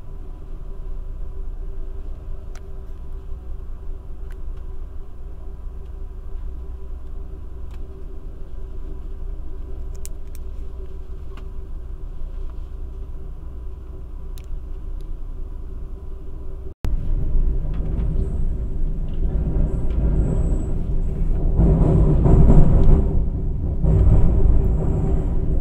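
Amtrak Superliner passenger train running, heard from inside the car: a steady low rumble of wheels on track with a faint steady hum. About two-thirds of the way in, after a cut, the rumble turns louder and rougher as the train crosses a steel truss bridge.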